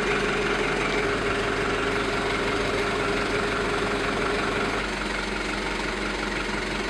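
Engine of a truck-mounted aerial work platform running steadily at idle, with a constant hum.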